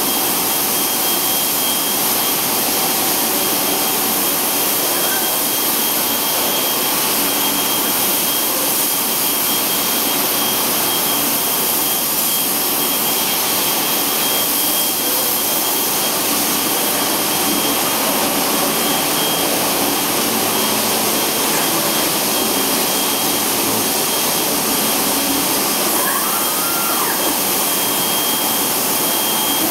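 Steady loud rush of air in an automated paint spray booth, with a thin steady whistle running through it.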